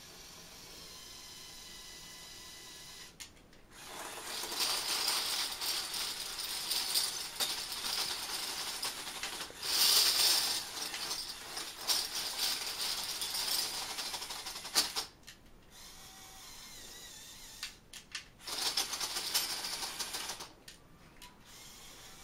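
Metal bottle caps clattering and sliding over one another as a motorised Lego Technic bulldozer's blade shoves into a pyramid of them. The clatter starts a few seconds in, peaks around the middle, stops about two thirds of the way through, and comes back in a shorter spell near the end, with a faint steady whine before it starts.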